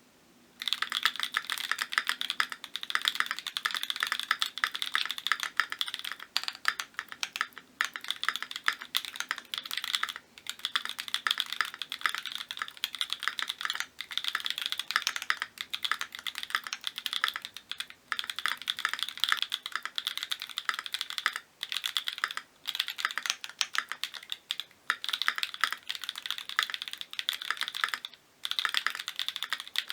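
Fast, continuous typing on a lubed Keychron Q2 65% aluminium mechanical keyboard with Mode Tomorrow tactile switches and Akko keycaps. Dense runs of keystrokes start about half a second in and break off briefly several times.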